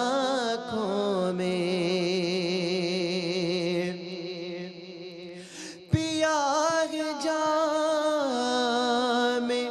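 A male naat reciter singing without words, holding a long ornamented note with vibrato over a steady low drone. After a brief lull and a short knock about six seconds in, he starts another held phrase that slides in pitch.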